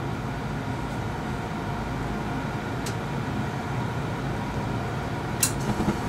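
A 90% gas furnace's draft inducer fan running steadily with a low hum while the hot surface igniter heats up before the burners light. A light tick about halfway and a sharper click near the end.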